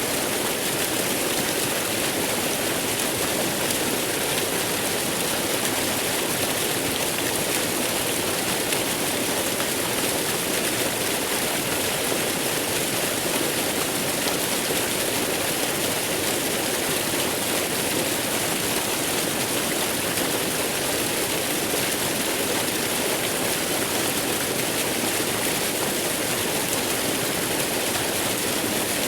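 Waterfall: a steady, unbroken rush of falling water, even and unchanging throughout.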